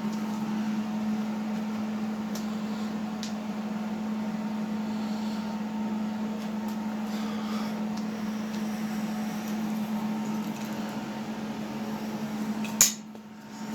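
Steady machine hum with a low, even pitch, broken by a few faint clicks. Near the end there is one sharp click, then a brief drop in the sound before the hum returns.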